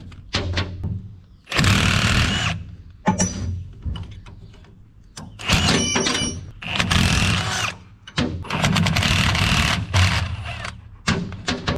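Hammer blows and tool clanking on metal while the snapped tractor driveshaft U-joint is taken apart. Several longer grinding or rattling bursts are followed near the end by a run of quick strikes.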